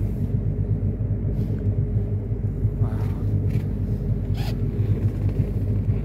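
Outboard engine of a rigid inflatable boat running steadily, a low pulsing hum.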